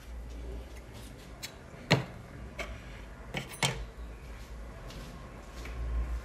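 Hard parts being handled and set down on a work table: a few sharp clacks and knocks, the loudest about two seconds in and two more close together about a second and a half later, over a low rumble.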